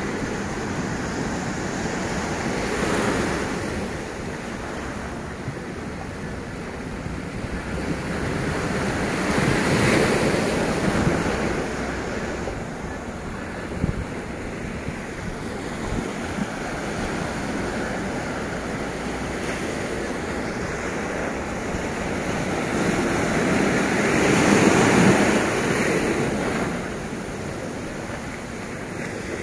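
Small surf washing up over sand and around rocks, rising and falling as waves break. There are three larger surges, about three seconds in, around ten seconds, and the loudest near the end. Wind buffets the microphone underneath.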